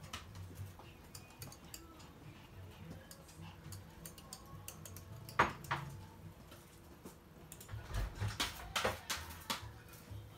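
Toy poodle's claws clicking and tapping on a hard floor and the box-and-can obstacle course, with one sharper knock about halfway through and a scattered run of clicks in the second half.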